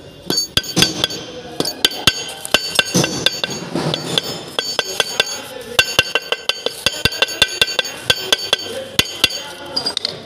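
Quick, irregular light taps of a ball-peen hammer driving a new oil seal into the cast engine PTO cover, each tap with a short metallic ring.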